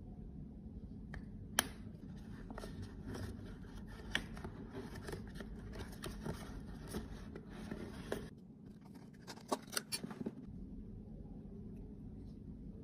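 Stiff folded paper rustling and crinkling under gloved fingers, with a sharp click about a second and a half in and a quick cluster of clicks about ten seconds in.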